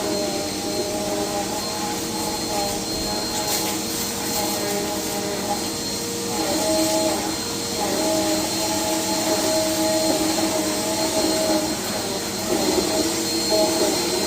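Vacuum cleaner running continuously: a steady motor whine with a thin high tone above it, its pitch wavering a little.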